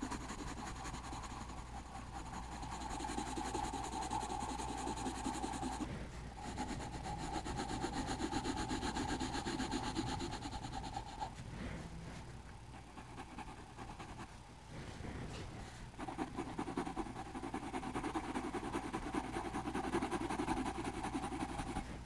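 Grey colored pencil shading on paper in a spiral drawing pad: fast back-and-forth scratching strokes that ease off briefly about six seconds in and again for a few seconds in the middle.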